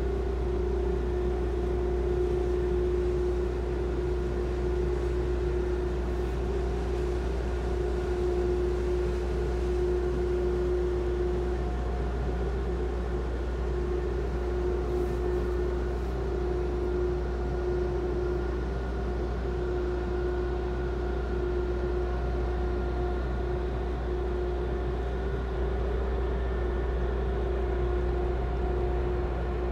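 A large car ferry's engines running with a steady low drone and a humming tone, unchanged throughout, as the ship manoeuvres into its berth.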